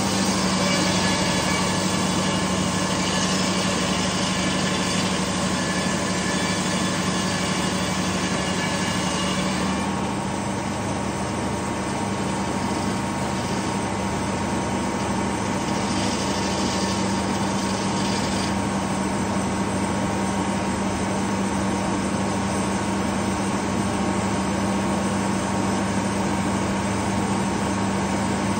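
Detroit Diesel engine running steadily under load, driving a large circular sawmill blade as it cuts through a pine log. The high hiss of the cut drops away about ten seconds in, comes back briefly twice, and leaves the engine and spinning blade running on.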